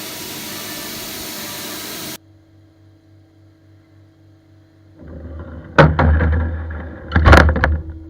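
Okuma VH-40 five-axis milling machine at work: a loud steady hiss that cuts off suddenly about two seconds in, then a low hum. In the second half a louder low drone starts, with two sharp clanks.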